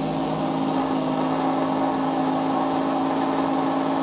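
Small 775-size brushed DC motor, the lower-speed 'for fan' winding, running unloaded on 12 V: a steady motor hum at constant pitch with brush hiss.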